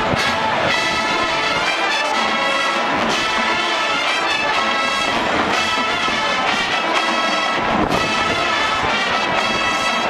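Full marching band playing: massed brass, including sousaphones, over marching drums.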